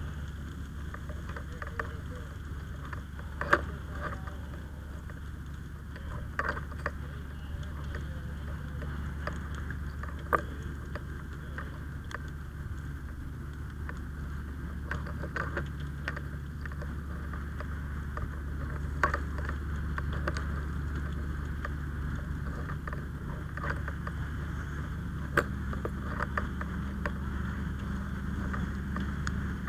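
An engine running steadily with a low hum; a higher tone joins near the end. Scattered sharp clicks and knocks sound over it a few times.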